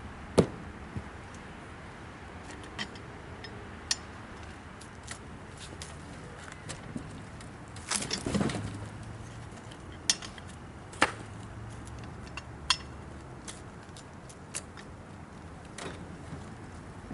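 Irregular sharp knocks and metallic clinks, with a longer clattering scrape about eight seconds in, over a faint low hum: the sounds of handling work around a log and sawmill.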